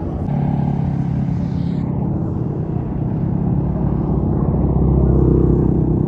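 Large tour bus's diesel engine running as it passes close by, a low rumble that grows louder towards the end.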